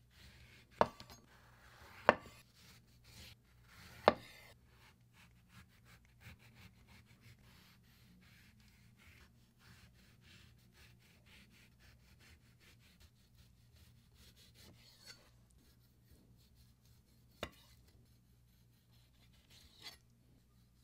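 A chef's knife cuts the peel off an orange on a wooden cutting board. Three sharp knocks against the board come in the first four seconds. After that the blade slices and scrapes quietly through peel and pith, with two lighter knocks near the end.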